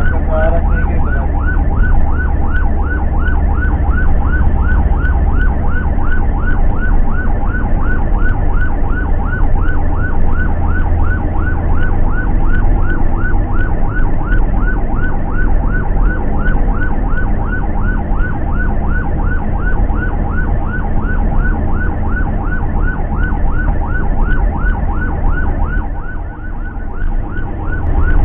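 Ambulance siren running in a fast yelp, short rising sweeps repeating several times a second, heard from inside the cabin over a steady low engine and road rumble.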